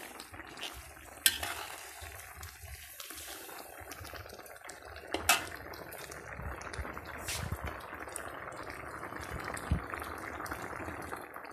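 Metal ladle stirring a bubbling coconut-milk fish curry in a metal wok: a steady simmering hiss with a few sharp clinks of the ladle against the pan, the loudest about a second in and about five seconds in.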